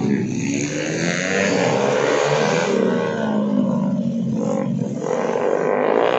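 Two small racing motorcycles revving hard as they corner, their engine pitch rising and falling again and again with the throttle.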